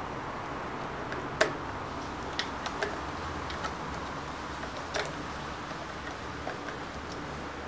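Scattered light clicks and taps of plastic parts and a tool being handled while tangled hair is worked off a robot vacuum's brush, over a steady background hiss; the sharpest click comes about a second and a half in.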